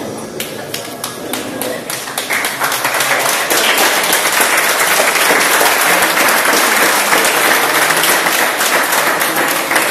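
Audience applauding: scattered claps at first, thickening into steady, loud applause about two and a half seconds in.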